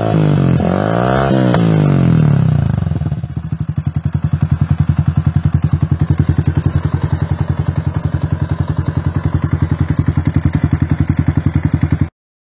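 Motorcycle engine breathing through a Yoshimura carbon aftermarket exhaust, blipped twice with the revs rising and falling, then settling into a steady, evenly pulsing idle that cuts off suddenly near the end.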